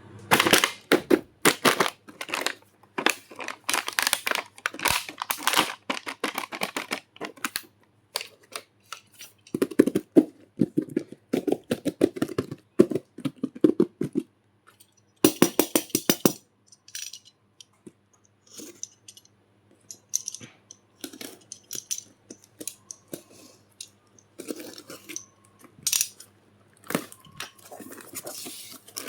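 Unboxing a plastic toy kitchen set: packaging crinkling and small plastic pieces clicking and rattling together in irregular bursts, with short pauses between handlings.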